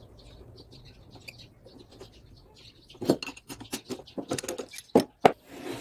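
Metal tools and motor parts clinking and knocking as they are handled, a quick string of sharp clicks with two loud knocks about five seconds in; faint bird chirps before them.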